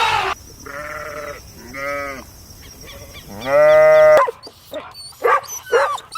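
Sheep bleating three times, the third bleat the longest and loudest. About four seconds in it cuts to a run of short, high-pitched calls.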